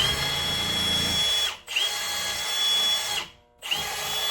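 Electric drill spinning a strip of emery cloth, held in a slotted bolt, inside a brake master cylinder bore to polish it smooth. The drill whines steadily in three runs, stopping briefly about a second and a half in and again just after three seconds.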